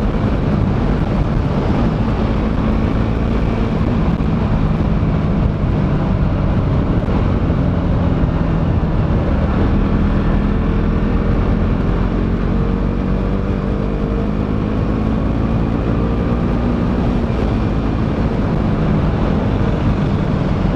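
KTM Duke 200's single-cylinder engine running while the bike is ridden, heard on board with heavy wind rush, its pitch rising gently partway through.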